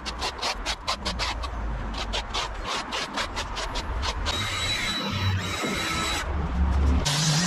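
A rake scraping dry dead grass across brick pavers in quick repeated strokes, about four or five a second. Near the end a battery leaf blower starts up: first a high whine, then a steady rush of air.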